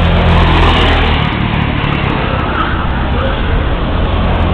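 Go-kart engines running steadily as racing karts pass on the track.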